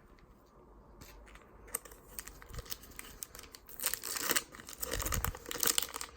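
A baseball card pack's wrapper crinkling and tearing as the pack is opened by hand. The crackle is sparse at first and gets busier and louder over the last couple of seconds.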